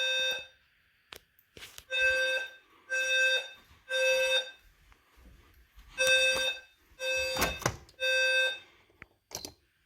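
A 520 Hz low-frequency smoke-alarm sounder buzzing a square-wave tone in the temporal-3 evacuation pattern: three half-second beeps, a pause of about a second and a half, then three more. A few faint clicks fall between the beeps.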